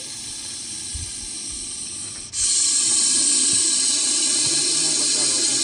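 Russell's viper hissing: a softer breathy hiss, then a loud forceful hiss from about two seconds in. This is the snake's defensive warning when it feels threatened.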